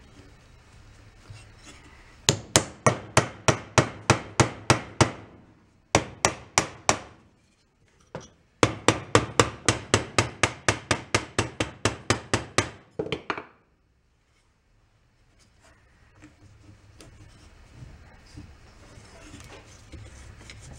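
A mallet rapidly strikes the lower-unit gear housing of a 1937 Sears Waterwitch outboard motor. The blows come in three runs at about four a second, the middle run short, and stop a little past halfway.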